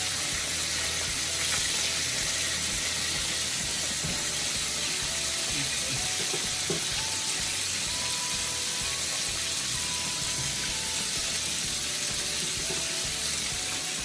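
Chicken pieces frying hard in hot oil over high heat: a steady, even sizzle.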